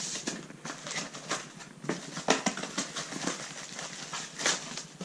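Packaging and small parts being handled: irregular clicks, knocks and rustling as the box contents, connectors and mounting plates, are taken out.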